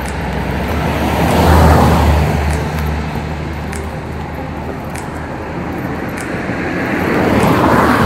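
Cars passing on the road, each a swell of tyre and engine noise that rises and fades: one about two seconds in, another near the end.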